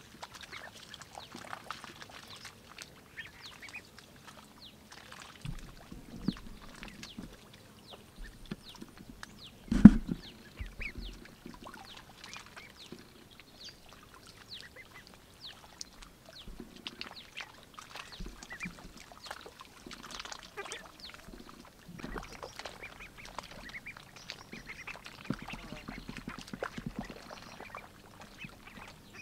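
Young white domestic ducks quacking and dabbling their bills in shallow water, with many small splashes and clicks. One loud thump about a third of the way in.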